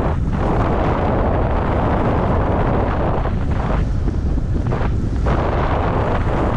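Heavy wind buffeting the microphone: a loud, dense rumble with no let-up in the lows. Its hiss thins briefly about three and a half seconds in and again from about four to five seconds.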